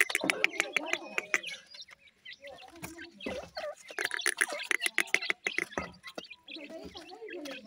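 Teetar (francolin) chicks calling with soft chirps and wavering peeps. Rapid clicks and ticks of beaks pecking at gravelly soil run alongside, busiest in the first second and a half and again from about four seconds in, with a short lull between.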